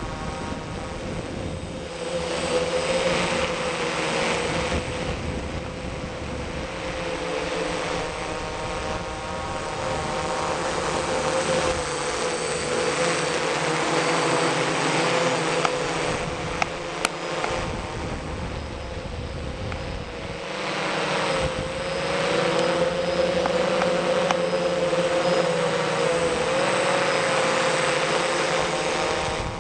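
Small camera drone's motors and propellers running with a steady whine that wavers slightly in pitch, heard from the aircraft's own camera, under a rushing hiss that swells and fades several times. A couple of sharp ticks come about halfway through.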